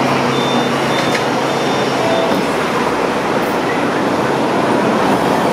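Steady rumble and hum on board a stationary Hong Kong double-decker electric tram, with buses and cars going by on the road alongside.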